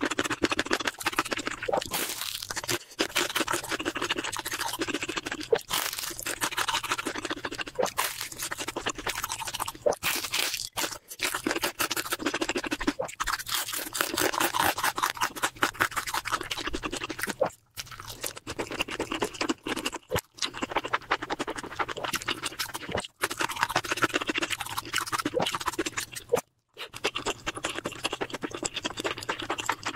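Close-miked eating sounds: a person chewing with wet, smacking mouth clicks, continuous and dense, cutting out briefly a few times.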